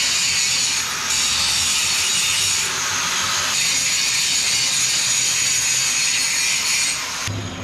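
Angle grinder grinding the steel of the truck frame smooth where the old engine mounts were cut off. A loud, steady grinding hiss that changes abruptly a couple of times and stops shortly before the end.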